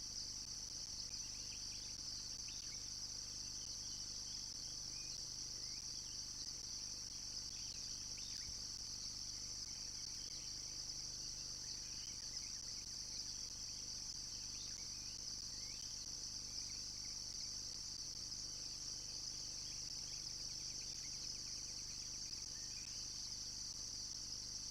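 Steady high-pitched chorus of insects, with faint, scattered bird chirps over it and a low steady hum underneath.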